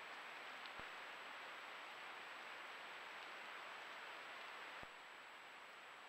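Faint steady hiss from a trail camera's microphone, with a thin high whine running through it. There is a short click about a second in and another near five seconds, where the hiss drops slightly.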